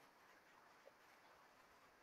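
Near silence: faint steady background hiss, with one tiny tick a little under a second in.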